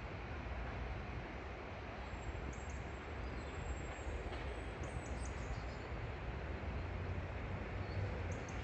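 Steady outdoor background rumble with a few faint, high bird chirps.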